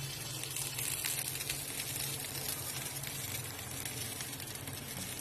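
Onion and spice masala sizzling in oil in a lidded pan on a gas burner as it is fried down, a steady hiss with faint crackles over a low hum.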